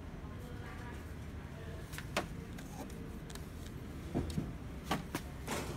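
Flatbed scanner carriage of an HP Color LaserJet Pro M479 running during a scan, a steady low motor hum. A few sharp clicks and knocks, two close together about two seconds in and several more in the second half.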